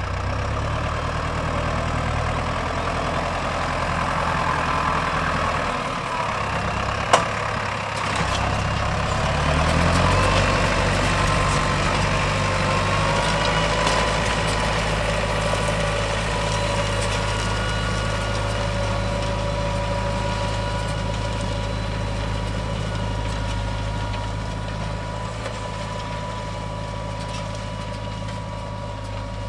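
Lamborghini R.4 110 tractor's diesel engine running steadily; its engine speed drops briefly and then picks up again about a quarter of the way in. A single sharp click sounds about seven seconds in.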